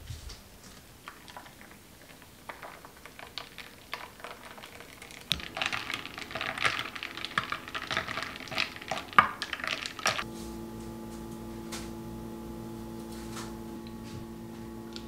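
A metal spoon stirring in a glass of coffee and milk, rapid clinking against the glass for about five seconds after a few light taps. About ten seconds in the clinking stops and a steady electrical hum starts.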